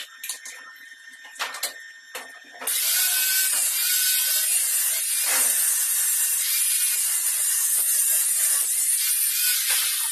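A metalworking tool in a welding shop making a loud, steady hissing, rasping noise. It starts suddenly about two and a half seconds in and runs for about seven seconds, after a few light clicks.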